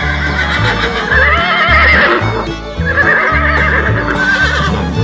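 A horse whinnying twice in long, quavering neighs, laid over background music with a steady bass beat.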